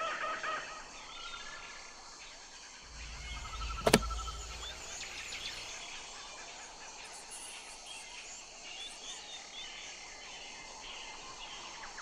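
Meerkats' short chirping calls over outdoor background noise. A repeated pulsing call trails off in the first half-second, and a single sharp click over a brief low rumble comes about four seconds in.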